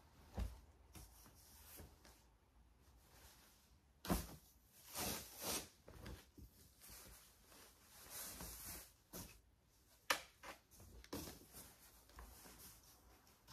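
Intermittent rustling and soft knocks of wool and tweed blazers being lifted out of a box and handled, with a brief sharp click about ten seconds in.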